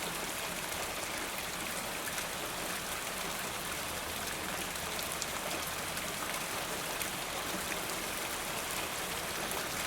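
Steady rain falling, an even hiss with many small drop ticks and no change in intensity.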